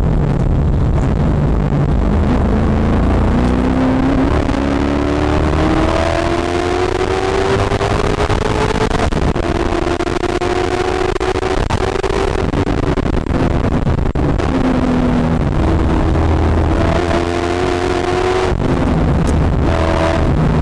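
Katech-built V8 of a C6 Corvette Z06 race car at full race pace, heard from inside the car. Its pitch climbs steadily for several seconds under acceleration, then drops and climbs again a few times as the driver lifts and gets back on the throttle through the corners.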